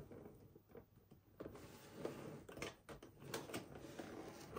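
Cardboard doll box being handled and turned by its carry handle: faint rustling and scraping of the cardboard, with a few sharp clicks in the middle.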